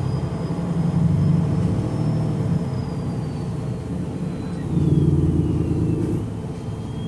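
MAN NG313 bus's horizontal straight-six D2866 turbo diesel running, with a thin high whine from its hydraulic radiator fan over the engine rumble. The whine slowly falls in pitch about halfway through, and the engine note swells briefly around five seconds in.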